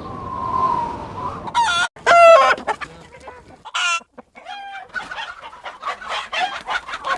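Cartoon stock sound effect of a chicken squawking and clucking, loudest about two seconds in, then a run of short clucks. It is preceded by a wavering whine in the first second or so.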